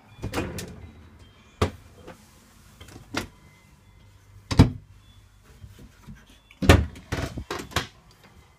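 Travel trailer door and fittings being handled: a series of sharp knocks and clunks. The loudest comes about halfway through, and a quick cluster of them falls near the end.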